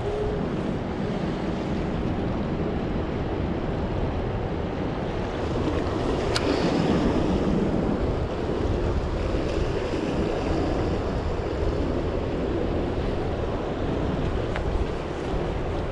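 Waves washing against jetty rocks, with wind buffeting the microphone; the wash surges louder about six seconds in. A sharp click comes once at the surge and faintly again near the end.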